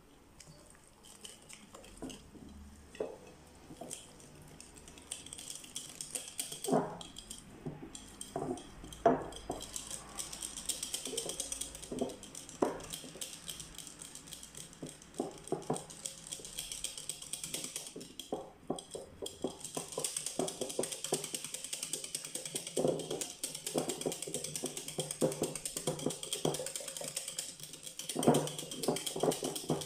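Wire whisk clicking and scraping against a glass mixing bowl in quick irregular strokes, beating flour into warm yeast water to make a batter.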